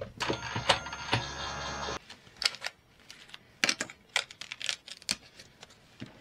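Light taps, clicks and rustles of die-cut card stock being handled and set down on a cutting mat. For the first two seconds a steady hum runs underneath and cuts off abruptly.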